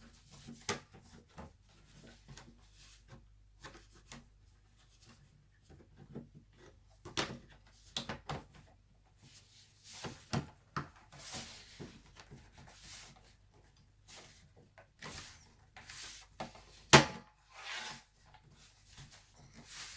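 Plastic laptop cover and parts being handled and fitted back on: scattered clicks, taps and short rubbing noises, with one sharp click about 17 seconds in.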